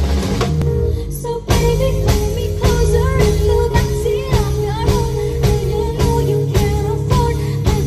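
Band music: an ornamented melody line over a steady beat and bass, with a short drop in loudness about a second and a half in.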